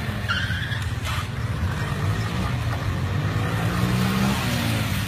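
Small motorbike engines running, one revving up about four seconds in and easing back down near the end.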